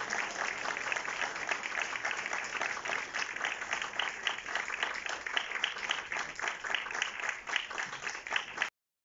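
Audience applauding: steady, dense clapping from many hands that cuts off suddenly near the end.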